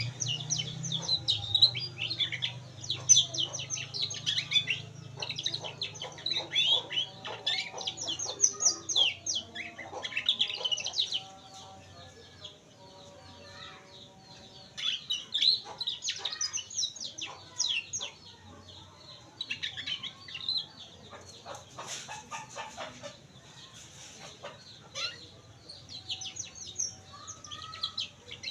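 Domestic canary singing: fast runs of high chirps, trills and falling notes, breaking off briefly twice before starting up again.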